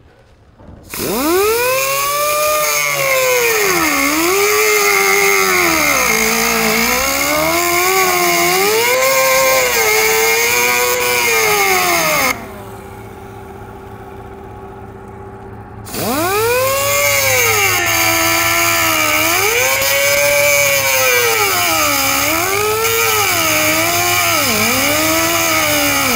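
A high-speed power cutting tool slicing through the steel outer sill panel of a car. Its whine sags in pitch each time it bites into the metal and climbs back as it eases off. It comes in two long runs, broken by a pause of a few seconds near the middle.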